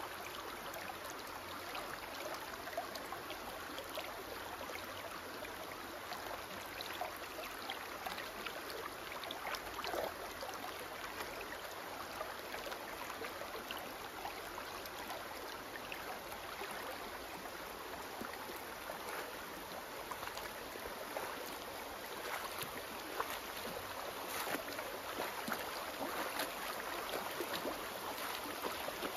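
Shallow creek running over rocks, a steady rush of water, with small scattered splashes from a dog wading through it.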